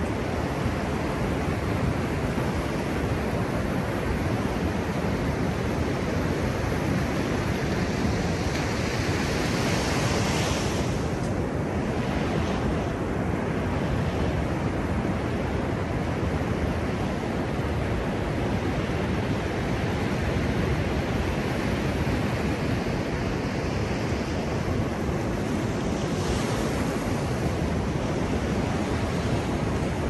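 Ocean surf: waves breaking offshore and washing up over flat wet sand, a steady rush of water with a deep low rumble beneath it. The hiss of the surf swells twice, about a third of the way in and again near the end.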